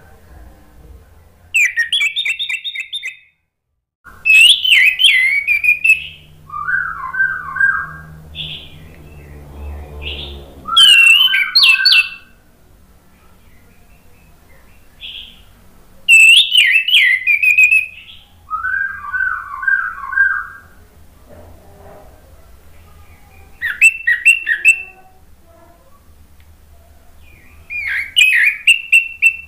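Orange-headed thrush (anis merah) singing: loud, whistled, rapidly warbling phrases of one to two seconds each, repeated with short pauses. Some phrases sit higher and some lower in pitch.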